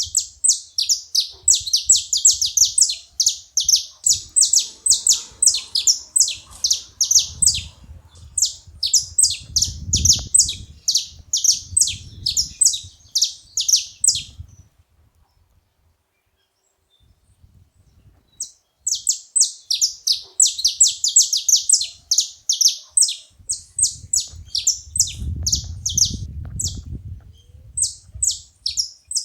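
Saffron finch calling: a fast run of sharp, high chirps, about four a second, that breaks off about halfway through for a few seconds and then starts again.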